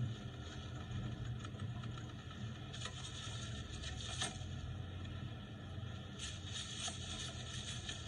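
Steady car-cabin road noise from a film soundtrack playing through laptop speakers, with a few short rustling scrapes about three seconds in and again near the end.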